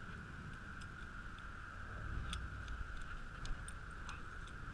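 Two dogs play-wrestling close by on grass, heard as scattered light ticks and clicks over a steady hiss and low rumble.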